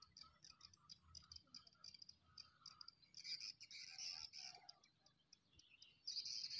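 Faint birds chirping, many quick short notes repeating, louder about three seconds in and again near the end, over a steady thin high-pitched tone.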